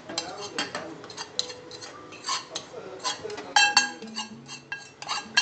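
A spoon stirring and scraping black peppercorns dry-roasting in a small metal pan, with frequent clicks and a quick run of sharp ringing clinks a little past halfway.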